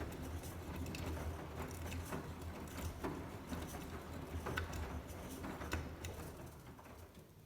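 Beko washing machine washing a load of towels: a steady low motor hum with irregular soft knocks and patter from the turning drum, fading away near the end.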